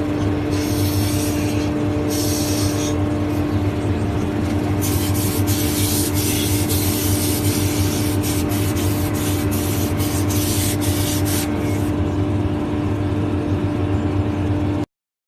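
A power tool's motor running steadily with a constant hum, with repeated spells of harsh hiss as it bites into the work about a third of the way through. It cuts off suddenly near the end.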